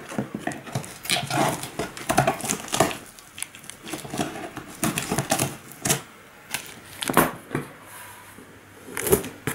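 Scissors cutting through plastic packing tape on a cardboard box, with the tape crinkling and tearing in irregular snips and crackles that thin out over the last couple of seconds.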